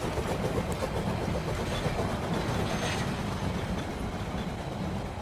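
A train running along its track in a steady rumble that fades a little toward the end.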